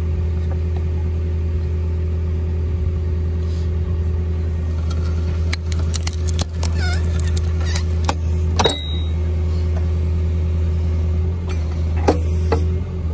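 Engine of the hydraulic power unit driving a pipe ram running steadily throughout. Metal clicks and knocks come as pipe is handled in the ram, several between about five and nine seconds in and a few more near the end.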